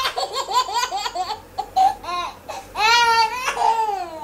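A young child laughing: a quick run of short, high-pitched laughs, then a longer, high call that falls in pitch about three seconds in.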